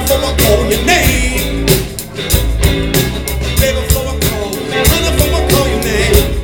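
Live blues band playing, with a steady drum beat under guitar and singing.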